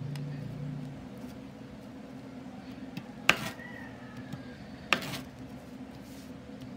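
Kitchen knife chopping Oreo cookies on a wooden cutting board: two sharp knocks of the blade hitting the board, about a second and a half apart, over a steady low hum.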